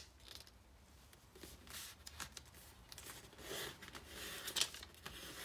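A sheet of kami origami paper rustling and scraping softly as fingers fold an edge over and run along the fold to sharpen the crease, in a series of short, faint strokes.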